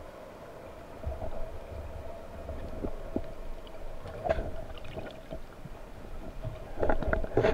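Underwater sound of a speargun shot: a low rumble of water, then a sharp click of the speargun firing about four seconds in, followed near the end by a rapid clatter of clicks from the shaft and line as the speared fish pulls.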